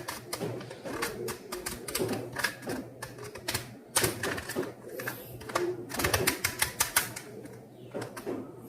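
A stiff old Rubik's cube being scrambled: its plastic layers turning in quick, irregular clicks and clacks. The cube is very hard to turn.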